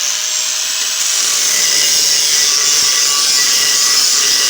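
Angle grinder with a worn cut-off disc grinding through the steel shell of a refrigerator compressor: a steady, loud, high grinding hiss over the motor's hum, the disc worked back and forth along the cut.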